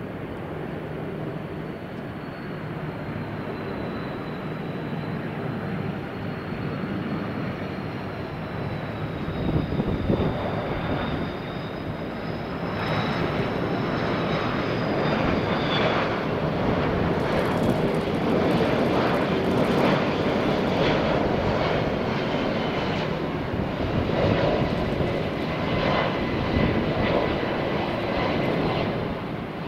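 Airbus A330 airliner on final approach to land: a steady jet engine rumble with a high whine that drifts slowly in pitch. The noise grows louder about halfway through as the plane comes closer.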